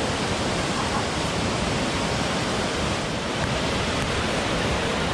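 River rapids rushing over boulders, a steady full roar of whitewater. The river is running high and brown after a night of heavy rain.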